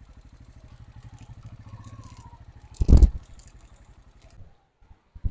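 Motorcycle engine idling with a rapid, even low beat; a loud thump about three seconds in, then the beat fades and stops near the end.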